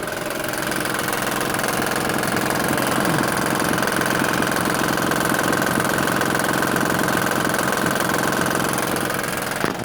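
2007 Honda Pilot's 3.5-litre V6 idling with a fast, steady rattle from its timing belt: the belt is loose and the hydraulic tensioner lets it flap, its piston moving up and down too much, so the tensioner has failed. It cuts off suddenly just before the end.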